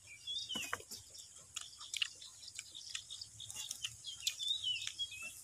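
People chewing and eating, with small scattered clicks and crunches. A bird chirps twice, about half a second in and again near the end.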